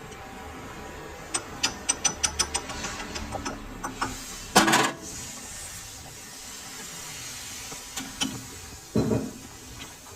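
Metal work in a lathe shop: a quick, even run of about a dozen sharp metallic clicks, then a louder knock with a scrape, and a few more scattered knocks near the end.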